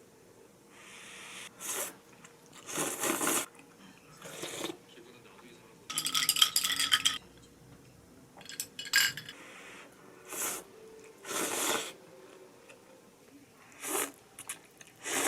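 Dishes and utensils being handled: a string of short clatters and scrapes, with a longer burst of ringing clinks about six seconds in.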